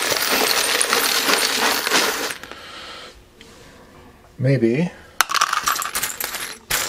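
A jarful of small metal screws poured out onto a workbench: a dense jingling clatter that dies away about two seconds in. Near the end, scattered light clinks as fingers sort through the pile of screws.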